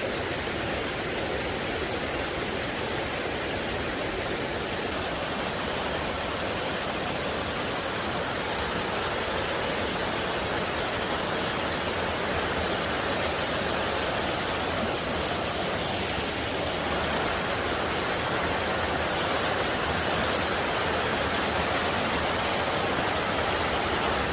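Waterfall with a moderate flow pouring into a canyon: a steady, even rush of falling and splashing water.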